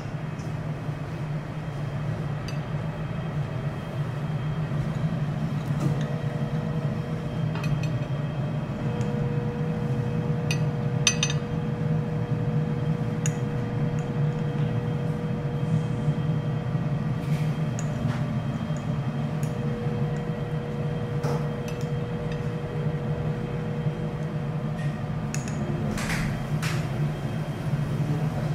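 Steady low hum, most likely the extraction over a teppanyaki griddle, with scattered light clinks of metal utensils and tableware.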